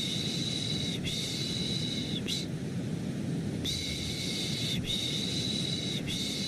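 Looped 'shh, shh' shushing for lulling a baby, in pairs of hissing shushes about a second each, with short pauses between the pairs. Underneath runs a steady, deep white-noise rush.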